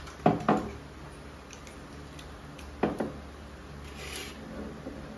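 Sharp clicks and knocks of tableware being handled: two quick pairs, one just after the start and one about three seconds in. A short sniff follows near four seconds.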